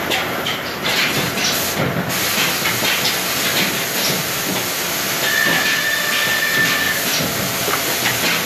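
Woodworking machinery in a particleboard panel workshop running with a loud, steady hiss and scattered knocks of boards being handled. A thin high whine comes in about five seconds in and stops about two seconds later.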